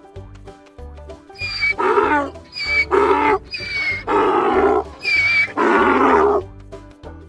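A large animal calling loudly four times in a row, each call starting high and dropping into a lower, harsher stretch, over steady background music.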